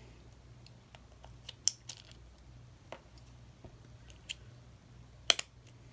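Small, sharp metal clicks of tweezers working the bearing retaining clip out of a Shimano Curado E7 baitcasting reel's side plate: a few scattered ticks, the sharpest near the end, over a faint steady hum.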